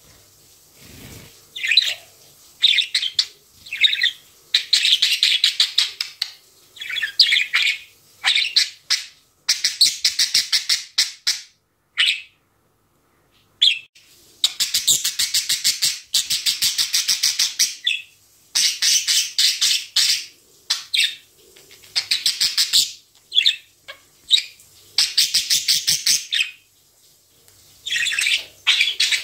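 A budgerigar chattering close by: bursts of rapid chirps and clicking warble, each a second or two long, with short pauses between them and a brief silence about twelve seconds in.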